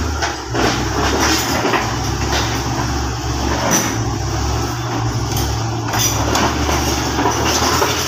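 Komatsu bulldozer's diesel engine running steadily under load, with scattered clanks and knocks from its steel tracks and the rock it is working over.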